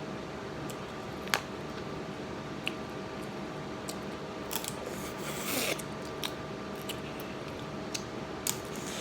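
Crab shells being cracked and picked apart by hand: scattered sharp clicks and snaps, the loudest a little over a second in, with a short rustling, scraping noise around the middle.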